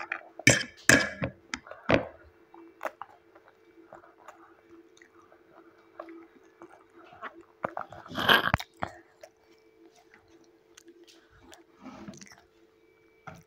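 A young child chewing noodles close to the microphone, with small wet mouth sounds. There are a few sharp clicks in the first two seconds and one longer, louder noise about eight seconds in, over a faint steady hum.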